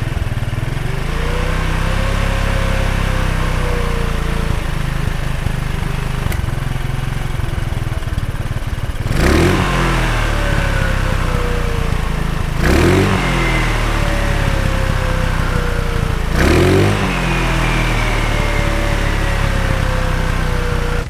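Baccio scooter engine idling on its centre stand with the rear wheel turning, through its unmodified stock muffler. It is revved three times, a few seconds apart, from about halfway in; each rev rises quickly, then the engine note slowly falls back.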